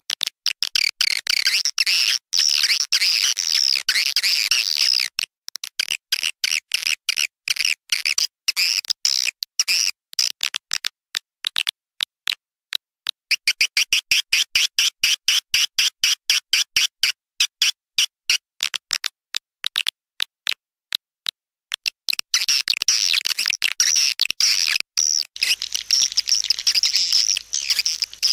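Swiftlet lure call: a recording of edible-nest swiftlet twittering, the calling sound played in swiftlet nesting houses to draw the birds in. Rapid, high-pitched chirps come in quick stuttering pulses, thinning to sparse clicks for a moment around the middle before a run of evenly repeated chirps and dense twittering again.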